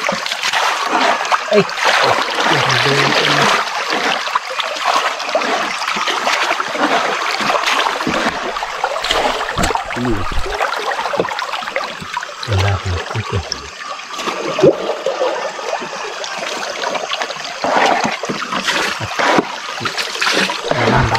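Water splashing and trickling in the bottom of a boat as hands sort through a pile of wet fish and giant freshwater prawns, with many small clicks and knocks throughout.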